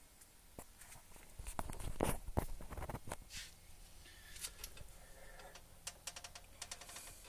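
Kawasaki KLR650 single-cylinder engine idling with a rapid, even ticking, the noise the owner calls horrible. Between about one and a half and three seconds in, louder thumps and rustling close to the microphone cover it.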